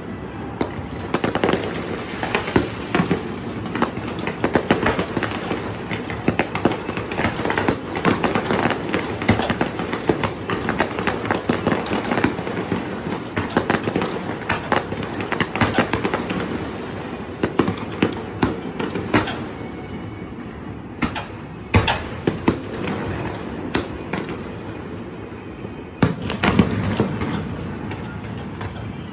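Aerial fireworks bursting: a dense, continuous run of bangs and crackle. About two-thirds of the way through it thins to a few single sharp bangs, then thickens again near the end.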